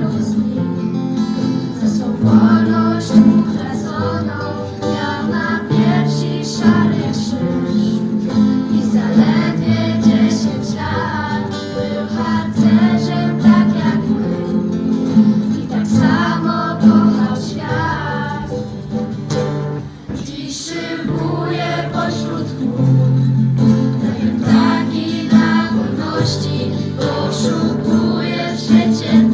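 Several voices singing a song together, accompanied by strummed acoustic guitar.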